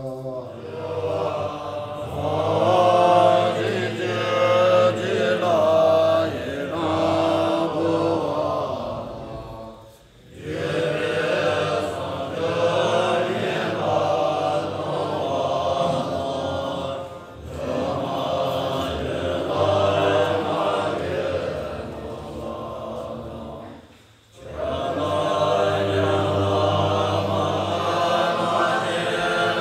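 Tibetan Bon monks chanting together in low unison, a deep drone of many men's voices in long phrases broken by brief pauses for breath.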